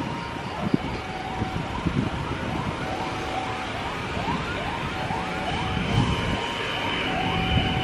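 Emergency-vehicle siren in a fast yelp, short rising sweeps repeating two to three times a second, over the rumble of passing road traffic including a truck. A steady high tone joins in the second half.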